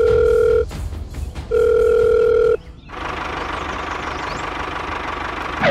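Two steady electronic tones of the same pitch, each about a second long with a short gap between them, then a steady rushing hiss.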